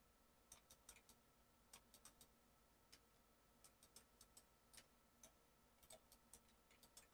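Faint, irregularly spaced clicks of a computer mouse and keyboard against near silence.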